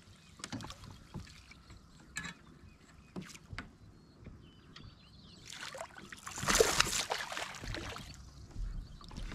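Light clicks and knocks of fishing gear being handled in a fishing kayak, then a louder couple of seconds of rustling and handling noise about six seconds in.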